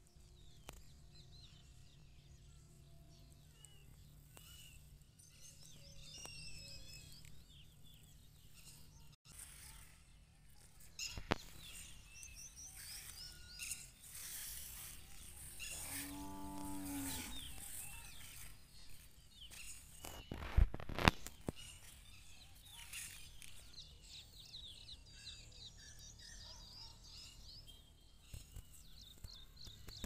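Rural outdoor ambience: small birds chirping throughout, and a cow mooing once, a drawn-out call of about a second and a half, around the middle. A few sharp knocks come near 11 s and twice around 21 s.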